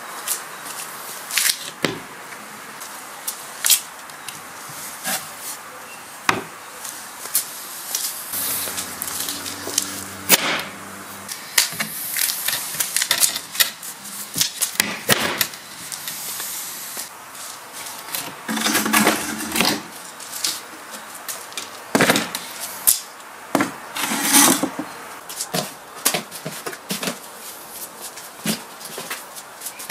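Homemade wooden folding table being unfolded and set up: scattered sharp wooden knocks and clicks from its frame, hinges and latches, with stretches of scraping and rattling handling.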